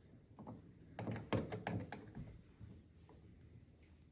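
A few light clicks and knocks of a wall switch and its mounting screw being handled and lined up against the electrical box, starting about a second in.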